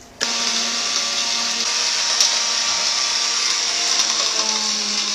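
Electric blender motor base running a small grinding cup of turmeric: a steady high-speed whirr that starts a moment in and stops near the end.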